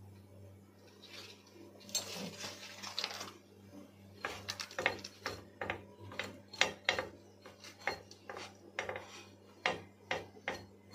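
Steel spatula spreading sauce over a toasted burger bun on a flat iron tawa: a softer rub a couple of seconds in, then a run of short scraping strokes, about two a second, from about four seconds in.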